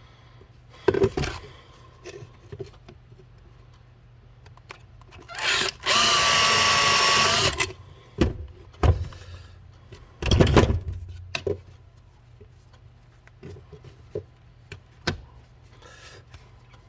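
Electric drill running in one burst of about a second and a half, with a steady whine. Several short knocks and clicks of tools being handled come before and after it.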